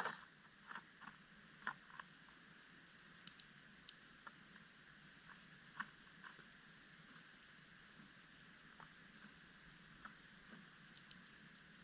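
Faint, scattered clicks and taps of small birds pecking at seed on a feeder, a dozen or so irregular ticks, with a few brief high chirps.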